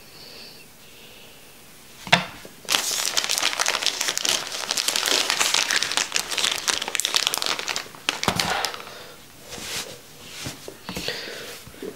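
A packaging bag crinkling as it is handled and worked open, with a sharp click about two seconds in. The crinkling is dense for about five seconds, then dies down into softer, scattered rustles.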